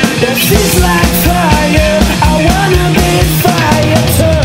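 Alternative indie funk-rock band recording in an instrumental passage: a steady drum beat and bass under a lead line whose notes bend and slide.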